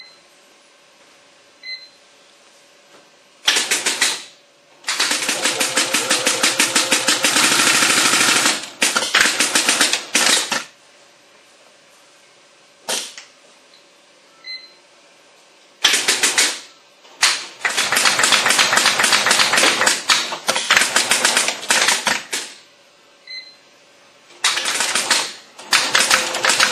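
HM820 industrial sewing machine stitching in several runs of rapid, even needle clatter, each lasting a second to several seconds, with pauses between. Short beeps from its touchscreen control panel sound in some of the pauses.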